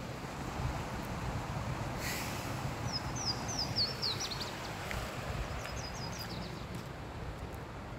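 A small songbird sings a run of about seven quick, high, falling notes about three seconds in, followed by a fainter, shorter run a couple of seconds later. Under it is a steady rumble of wind on the microphone.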